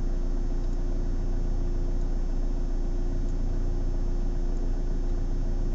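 Steady low hum and rumble of a stationary car, heard inside the cabin, with a faint high tick about every second and a quarter.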